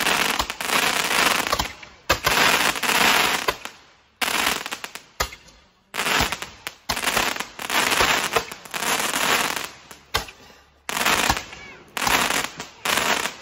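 Handheld firework tubes firing upward one after another, about a dozen shots. Each shot is a sudden crack followed by a hissing rush of sparks that fades over a second or two, with some shots overlapping.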